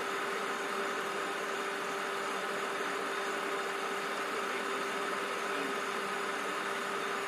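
A steady drone with two steady tones, one low and one higher, over an even hiss.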